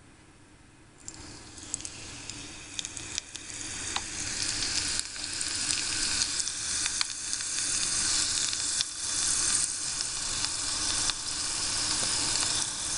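Hot oil sizzling and crackling in a miniature pan as cut potato strips fry into french fries. The sizzle sets in about a second in and grows louder, with many small pops.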